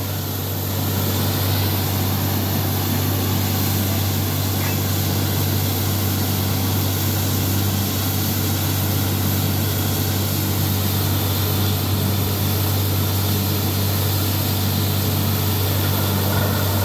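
Borewell drilling rig and its air compressor running steadily while compressed air blows water and mist out of the freshly drilled bore, a sign that the bore has struck water. A steady low drone with an even hiss of air and water over it.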